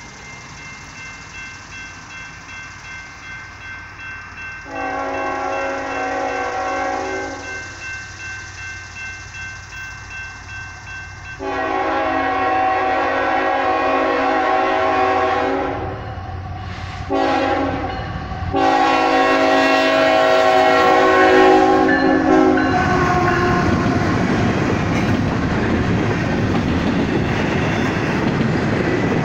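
Grade-crossing bell ringing steadily while a CSX locomotive's multi-chime horn sounds the crossing signal: two long blasts, a short one and a final long one. About 23 seconds in, the double-stack container train reaches the crossing and its cars roll past with a steady clickety-clack.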